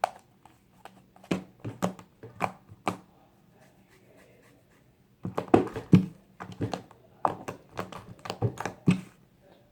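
Homemade slime being squeezed and kneaded by hand, giving short sticky clicks and pops: a few at first, a pause, then a quicker run of them.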